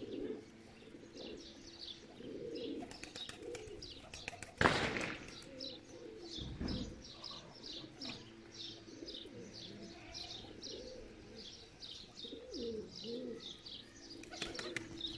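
Domestic pigeons cooing in low, wavering calls, over a steady run of rapid high chirps from small birds. A short, loud burst of noise stands out about four and a half seconds in.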